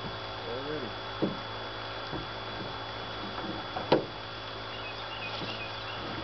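Knocks and handling noises in a small boat as a landing net is worked to land a fish, with a sharp knock about a second in and a louder one about four seconds in. Faint high chirps come near the end.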